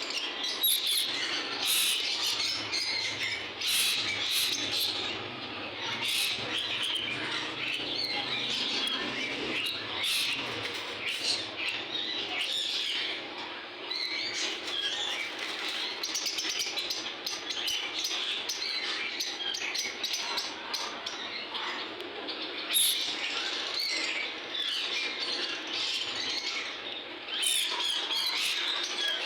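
A roomful of caged lovebirds chattering and squawking together in a steady, dense din of shrill calls, with short sharp clicks scattered through it.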